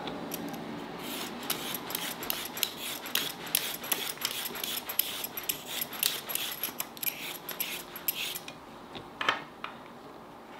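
A vegetable peeler scraping the skin off a carrot in quick, repeated strokes for about seven seconds. A single sharper knock follows about nine seconds in.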